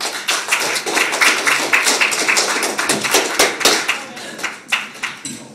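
Audience applauding: many quick overlapping claps, thinning out and fading near the end.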